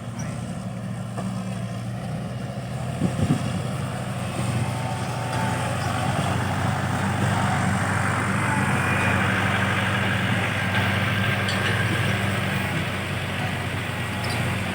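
Excavator's diesel engine running steadily, with a sharp knock about three seconds in and a rushing noise that builds from about five seconds in as the machine works, getting somewhat louder.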